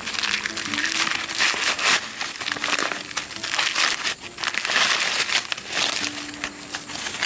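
Dry corn husks and leaves rustling and crackling as ears of mature corn are handled. The sound is an irregular crinkling that swells and fades several times.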